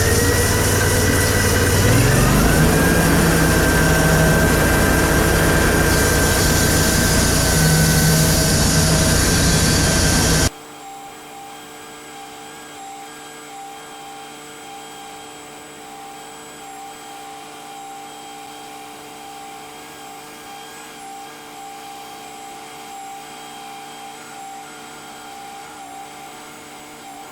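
Sawmill's engine throttling up about two seconds in and then running loud and steady under load for the start of a cut. About ten seconds in the sound drops suddenly to a much quieter, steady machine hum that lasts to the end.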